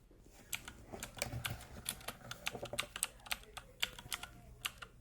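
Typing on a Perixx Bluetooth mechanical keyboard: an irregular run of sharp key clicks starting about half a second in.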